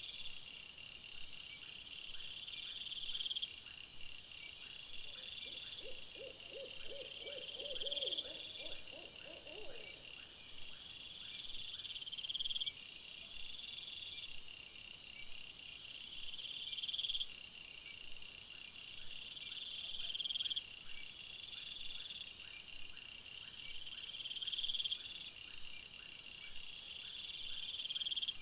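Night insects, crickets or similar, calling steadily in high, repeating phrases about every two seconds. From about five seconds in, a lower trilling call of rapid pulses rises in pitch for about four seconds.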